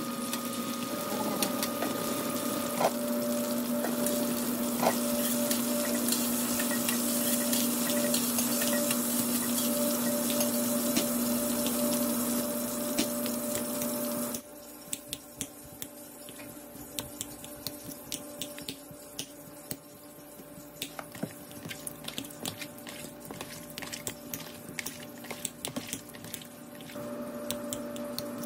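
Potato slices frying in oil in a wok: a steady sizzle over a low hum. About halfway through it cuts off suddenly, and a fork clicks and scrapes against a ceramic bowl as the fried potatoes are mashed. Near the end the low hum returns.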